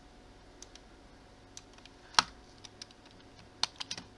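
Computer keyboard keys and mouse buttons clicking as shortcuts are pressed: a few scattered taps, the sharpest about halfway through, then a quick run of three or four near the end.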